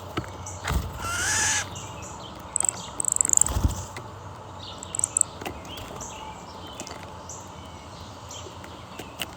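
Wild birds calling: one longer call about a second in, then a run of short, very high chirps around three seconds in, with scattered clicks.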